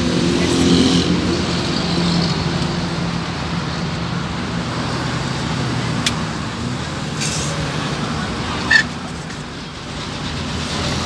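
Steady road traffic noise, vehicle engines running by the roadside, with a single sharp knock late on.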